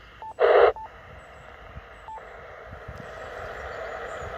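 Yaesu FT-857 transceiver giving short key beeps as the frequency is changed. A brief loud burst of static comes from its speaker about half a second in. It then settles into a steady receiver hiss with no station heard, the band quiet.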